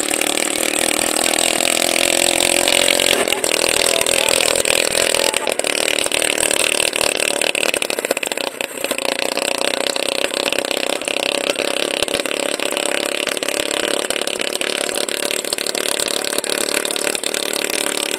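Small petrol engine of a homemade helicopter running steadily, driving its overhead rotor.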